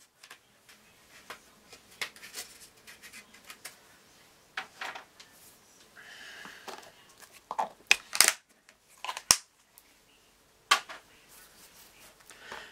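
Scattered light clicks and taps of small plastic craft containers and caps being handled on a table, with a brief soft rustle about six seconds in and a sharp click a little after nine seconds in.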